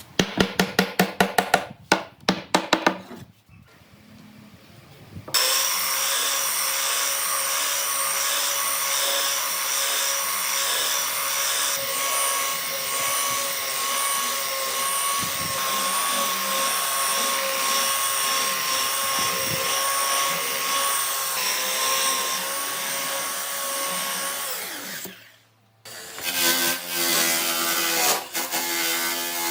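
Power tools working wood: a quick run of sharp knocks, then a tool running steadily with a high whine for about twenty seconds, stopping suddenly, and another tool starting near the end.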